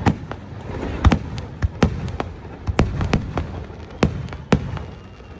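Aerial fireworks shells bursting in quick, uneven succession: about a dozen sharp bangs over a continuous low rumble.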